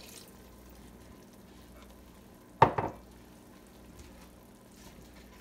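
Pot of vegetables and broth simmering faintly on the stove, with one sharp knock about two and a half seconds in.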